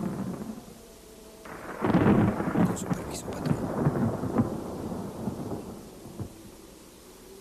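Thunder rumbling with rain: a loud roll starts about one and a half seconds in and dies away over the following few seconds, with a few crackles.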